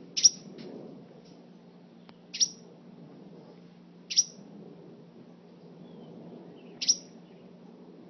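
Sparrow chirping: four short, sharp single chirps a couple of seconds apart, each sliding down in pitch.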